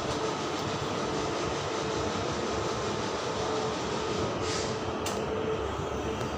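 Train running on the rails: a steady rumble of wheels and carriage noise, with a brief high hiss about four and a half seconds in.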